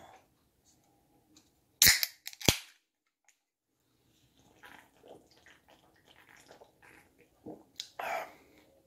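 Two sharp knocks about two-thirds of a second apart, followed by faint rustling and small handling clicks.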